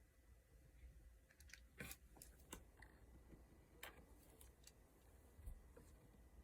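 Near silence with a handful of faint, short, sharp clicks in the middle, the two clearest about two seconds apart.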